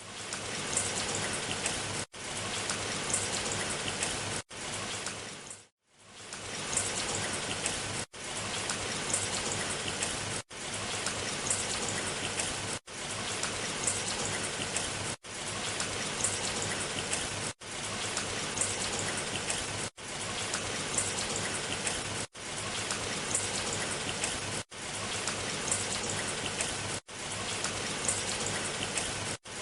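Steady rain falling, an even hiss of drops, cut by brief silent gaps about every two and a half seconds, with a longer gap about six seconds in.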